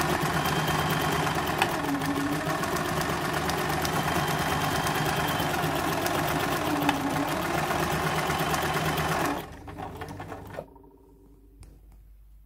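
Frister & Rossmann Star 114 electric sewing machine running at speed, stitching through cloth with rapid, even needle strokes. It stops about nine and a half seconds in, and a few faint clicks follow.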